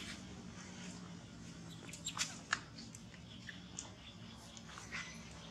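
Faint outdoor ambience: a low steady hum with a few sharp clicks about two seconds in and scattered brief high chirps.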